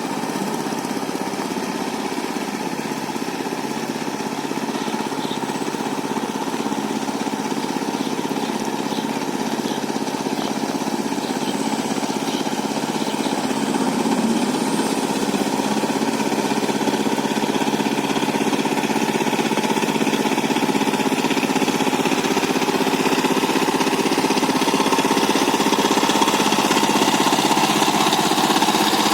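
Power tiller's single-cylinder diesel engine running steadily as it plows, slowly growing louder.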